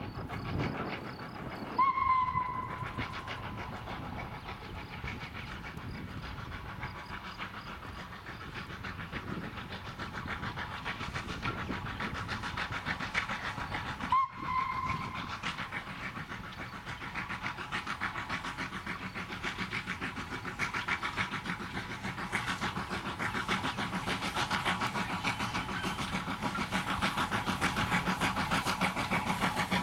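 Steam tank locomotive (an 030T, 0-6-0T) sounding its whistle twice: a short steady note about two seconds in and another about halfway. Its rapid exhaust beats and running on the rails grow steadily louder as the train approaches.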